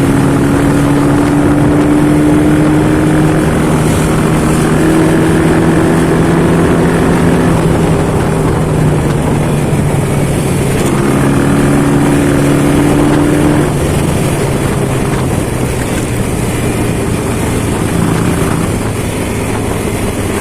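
A 1961 Norton Jubilee 250cc parallel-twin motorcycle engine running steadily, with backing music underneath.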